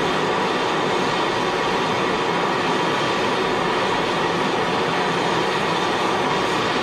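Propane soldering torch burning with a steady rushing hiss, its flame held on aluminium plates to heat them up to brazing temperature.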